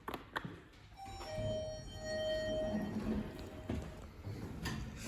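Otis lift: a couple of clicks, as of a car button being pressed, then an electronic chime, a short higher tone followed by a longer lower tone, over a low rumble of the lift.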